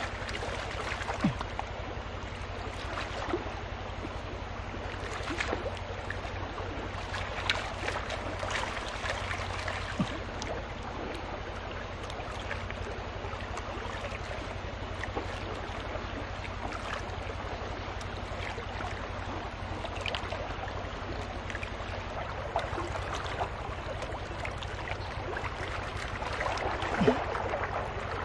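Water sloshing and splashing in a gold pan as it is swirled and rocked in shallow muddy water, washing sand and gravel over the rim, with a few sharp clicks of gravel against the pan.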